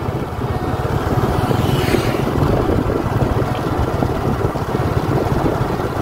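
Engine of the camera's vehicle running steadily at road speed, with a low hum under wind and road noise.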